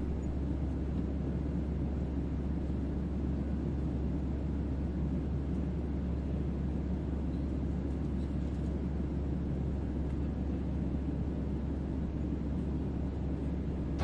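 Steady low rumble of an airliner cabin as the plane taxis, heard from a window seat.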